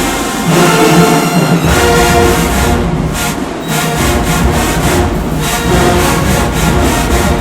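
Marching band playing loud sustained brass chords over a low, pulsing bass.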